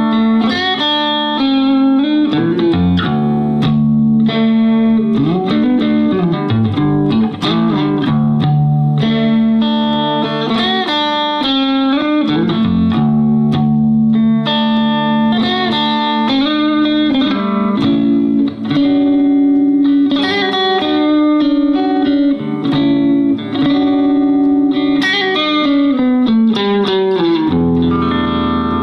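Handmade Harmony Stratotone hollow-body electric guitar with gold foil pickups, played through an amplifier: a continuous riff over a held low droning note, with several notes bent or slid up and down in pitch.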